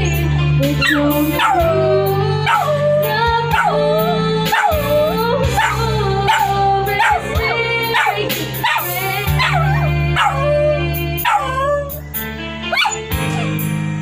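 A small dog howling and yipping in a run of short cries, each starting high and dropping sharply in pitch, about one a second, over music with a steady low bass. The cries stop about a second before the end, while the music goes on.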